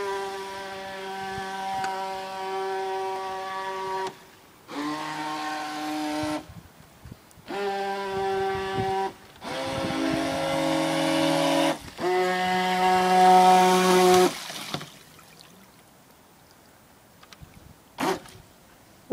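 A radio-controlled toy boat's small electric motor running with a steady buzzing whine, in bursts of two to four seconds as the throttle is worked on and off. Each burst holds a flat pitch that sits a little higher or lower than the last.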